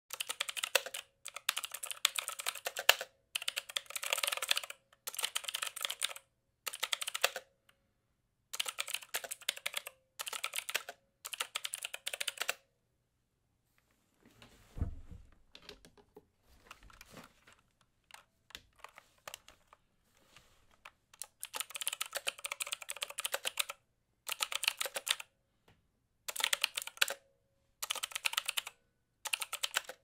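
Mechanical keyboard typing: fast runs of key clicks in bursts separated by short pauses. Near the middle the typing stops for several seconds, leaving a soft low thump and a few faint clicks, then the typing resumes.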